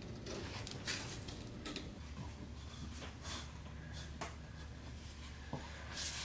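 Faint handling noise: scattered short rustles and a few clicks as a plastic side splitter and double-sided tape are worked by hand along a car's rocker panel, over a steady low hum.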